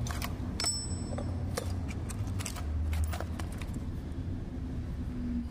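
Small machined metal valve parts for a PCP air-rifle valve clicking and clinking in the hands as they are handled, a run of sharp clicks in the first three and a half seconds, over a steady low rumble.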